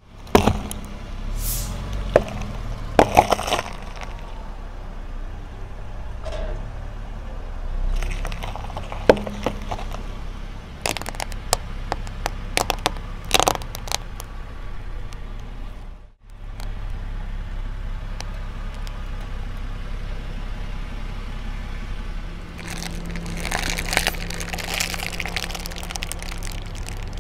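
A car tyre rolling slowly over rows of objects on concrete and crushing them. Sharp cracks and crunches come as potatoes and then small items give way under it, and a longer crackling comes near the end as a row of plastic sachets is flattened. The car's low rumble runs underneath.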